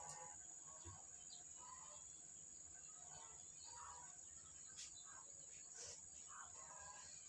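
Near silence: faint rural ambience, with a steady high insect drone and a few faint, scattered bird calls.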